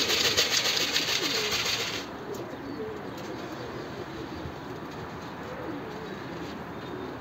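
Pigeons cooing in short, warbling calls throughout. For about the first two seconds a loud hissing noise lies over them and then cuts off suddenly.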